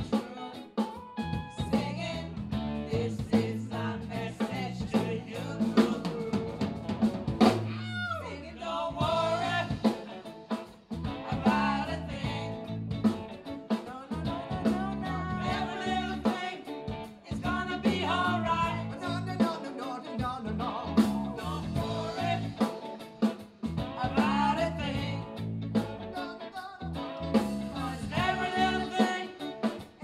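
Live band playing a song: several voices singing over electric guitars, bass and a drum kit with a steady beat.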